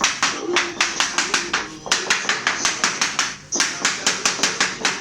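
A rapid, fairly even series of sharp taps, about four or five a second, with short breaks about two seconds in and again about three and a half seconds in.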